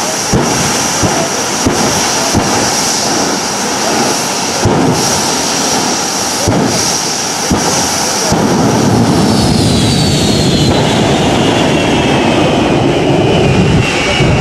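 The twin jet engines of a jet-powered 1940 Ford fire truck run with a steady high whine and a series of sharp pops. About eight seconds in, a deeper, louder rumble swells as the whine slides steadily down in pitch.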